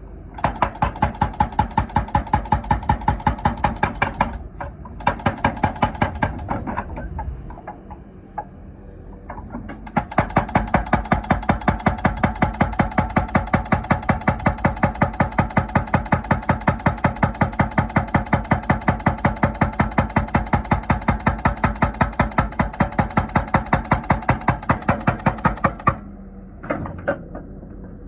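Excavator's hydraulic breaker hammering in a fast, even train of blows, several a second, over the running engine. The blows stop twice, once for a few seconds with only the engine heard, and end with a short last burst.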